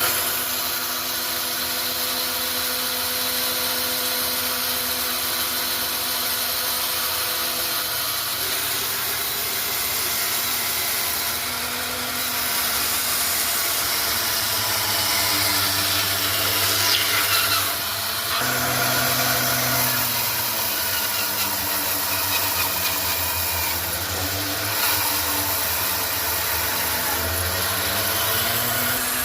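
Electric power tool running while working wood, its motor hum shifting in pitch as the load changes.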